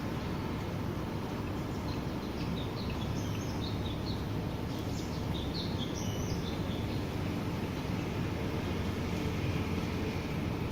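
Steady, even rain noise, heaviest in the low range, with a bird chirping in short calls between about two and seven seconds in.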